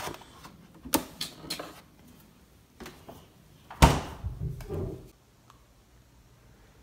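Handling noise from a plastic coffee tumbler being lifted out of a refrigerator door shelf: a few sharp clicks and knocks, then one loud thump about four seconds in followed by a brief rattle, after which it goes quiet.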